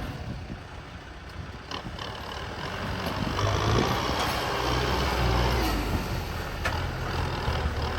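Heavy diesel engine of a construction machine running, growing louder about three seconds in as it takes on load, with two sharp clicks or knocks.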